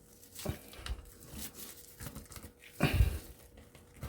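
Scattered clicks and knocks of hand tools and metal parts being handled while a scrapped fridge part is taken apart, with the loudest knock about three seconds in.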